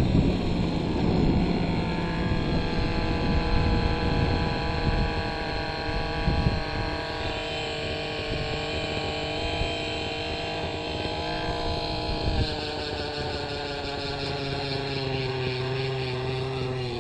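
O.S. MAX-55HZ-R two-stroke glow engine of an RC helicopter, fitted with an MS55-3D ZERO.SP tuned muffler, idling after landing while the rotor winds down. Rotor rush is mixed in at first, then the engine's steady note sinks slowly and drops a step about twelve seconds in.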